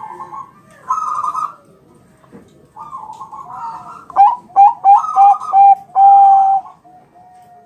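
Perkutut bangkok (zebra dove) cooing. Softer phrases lead into a loud run of short, clipped coos and a final longer held coo, the rhythmic song used as a lure to get other perkutut answering.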